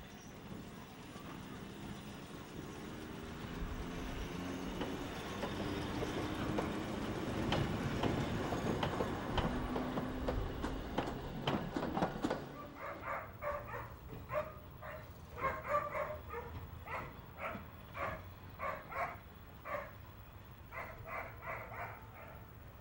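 Kurihara Electric Railway electric railcar pulling through, its traction motors giving a rising whine over the wheels clicking on the rail joints, louder as it passes and cut off sharply about twelve seconds in. Then a dog barking repeatedly in short barks, about two a second.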